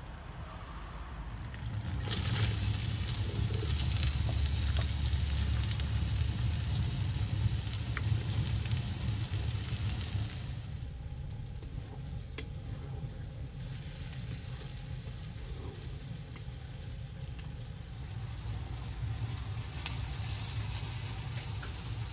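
Food frying in a cast-iron skillet as it is stirred with a wooden spatula. The sizzling grows loud about two seconds in and eases off around ten seconds, over a low rumble.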